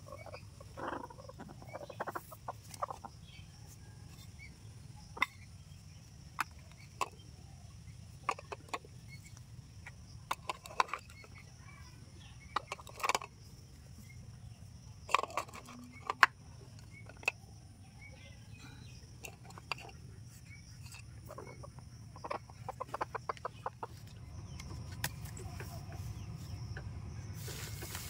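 Sitting hen clucking in short bursts as a hand reaches under her and takes her eggs, with sharp clicks scattered through.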